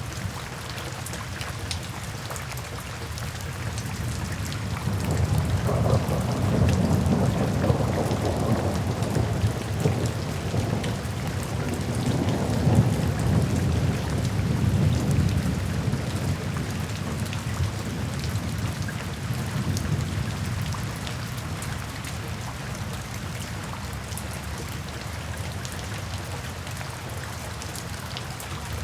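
Steady rain falling, with a long roll of thunder that swells about four seconds in, rumbles loudest through the middle, and fades away several seconds before the end.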